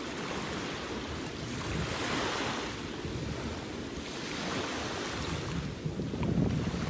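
Ocean waves washing in, with wind buffeting the microphone; the wash swells about two seconds in and again a couple of seconds later.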